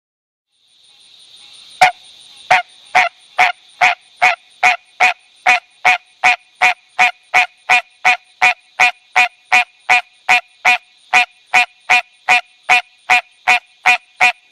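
A frog calling: a long, steady series of short, honking notes, about two to three a second, beginning about two seconds in with the first note the loudest, over a steady high hiss in the background.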